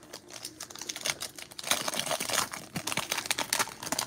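Foil wrapper of a Mosaic football card pack crinkling and tearing in the hands: a dense run of crackles, busiest in the second half.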